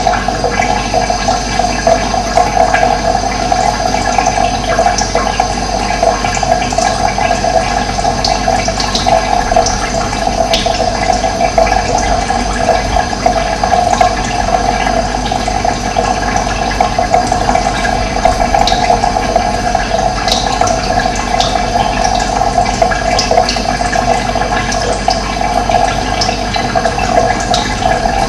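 Steady running water, a continuous rushing flow, with faint short high chirps here and there.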